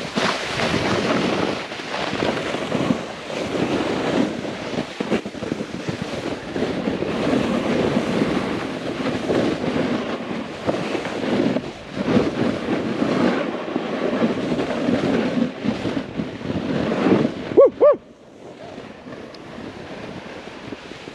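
Snowboard sliding and carving over slushy spring snow, a loud rough scraping mixed with wind buffeting the microphone. Near the end come two brief pitched blips, and then the sliding noise drops away to a quieter hiss.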